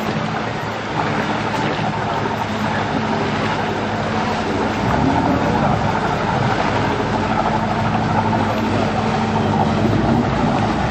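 Engine of a small passenger motor boat running as it comes in toward the landing, a steady rumble that grows louder and deeper about five seconds in.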